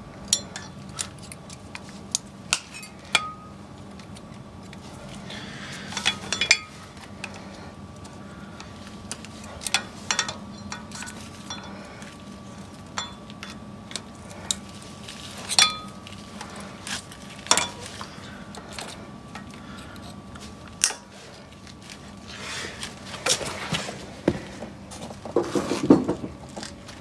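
Small steel parts and hand tools clinking and tapping as a spring washer, retaining ring and cotter pin are fitted over a front axle nut: irregular sharp metallic clicks, some ringing briefly.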